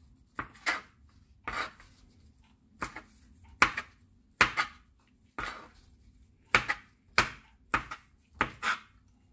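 Cleaver chopping cooked shrimp on a plastic cutting board: about fourteen separate sharp knocks of the blade on the board, irregularly spaced, some coming in quick pairs.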